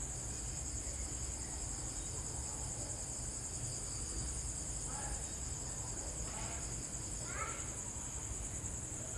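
Insects, crickets or cicadas, chirring in a steady high-pitched chorus, with a few short high calls from an animal in the second half.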